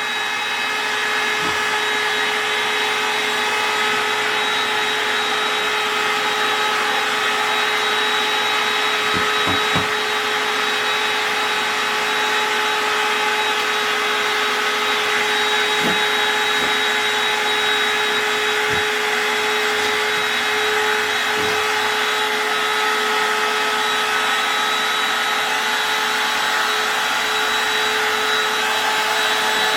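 Electric air pump of a Bestway inflatable air mattress running steadily, blowing air into the mattress as it inflates.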